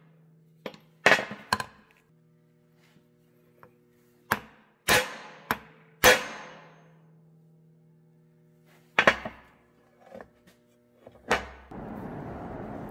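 Hammer blows on steel, about seven sharp ringing strikes at irregular spacing, seating a new U-joint's bearing cups in a driveshaft yoke. A low steady hum runs beneath and stops about nine seconds in, and a steady hiss starts near the end.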